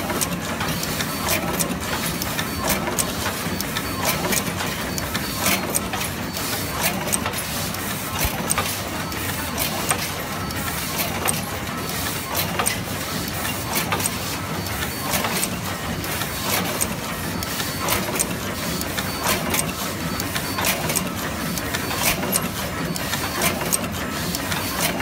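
Automatic single-head wire stripping and terminal crimping machine for 8 mm² cable running, a steady hum under frequent sharp clicks and clacks from its mechanism.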